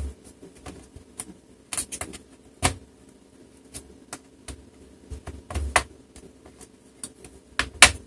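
Scattered clicks and snaps of the plastic bottom cover of an HP Pavilion 14 laptop as its clips are pried loose along the edge with a thin pry tool, with louder snaps a little under three seconds in, just before six seconds, and near the end.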